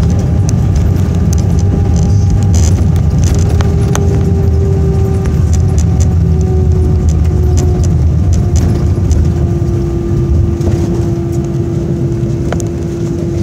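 Airbus A320-214 rolling out on the runway after touchdown, heard inside the cabin: a steady low rumble from the wheels and airflow, with a humming tone that slides slowly down in pitch and then levels off as the aircraft slows. Light rattles and clicks from the cabin fittings come and go.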